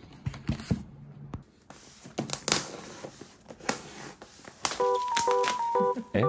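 A styrofoam box being opened and plastic bubble wrap rustling and crinkling as a packed cake is unwrapped, with sharp crackles and scrapes. Near the end a simple electronic keyboard melody of short plinking notes starts.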